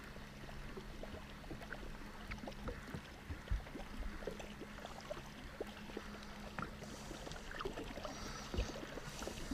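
Faint on-the-water boat sounds: water lapping and gurgling at a fishing boat's hull, with a faint steady low hum and scattered light clicks and taps.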